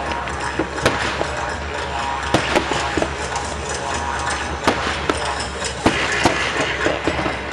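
Fireworks bursting: a run of sharp, irregularly spaced bangs, about eight, over a steady background of noise.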